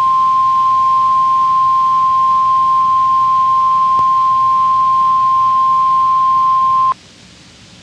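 NOAA Weather Radio 1050 Hz warning alarm tone, a loud steady single-pitch tone sent over the air by transmitter WXJ72 as its weekly required test. There is a faint click about four seconds in, and the tone cuts off suddenly near the end, leaving low receiver hiss.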